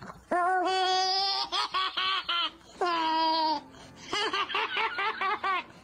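A person laughing in a high voice: long drawn-out laughs alternating with quick runs of giggles.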